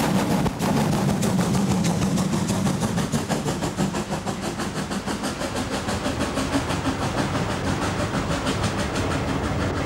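DR class 41 steam locomotive passing close by as it works its train, followed by its passenger coaches rolling past with a steady rapid clatter of wheels on the rails.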